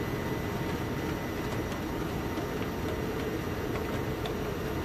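Steady drone of an MV-22B Osprey's engines and proprotors heard from inside the cargo bay with the rear ramp open, mixed with rushing air, with a few faint ticks near the middle.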